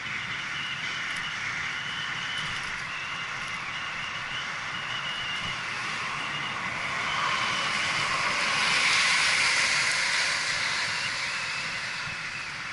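Steady rush of wind and road noise on a bicycle-mounted action camera riding at about 25 mph, growing louder about eight seconds in before easing off.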